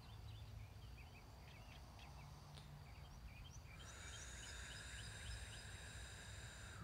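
Quiet background with small birds chirping faintly. About four seconds in, a steady high-pitched tone comes in.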